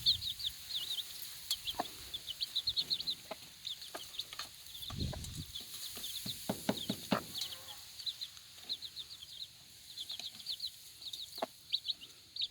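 Four-day-old chicks peeping in a steady stream of short, high-pitched chirps, with a few low clucks from the mother hen in the middle.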